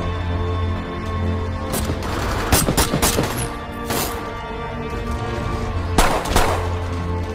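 Film soundtrack: a sustained, tense music score with a steady low drone, broken by gunshots at irregular intervals. The loudest shot comes about six seconds in.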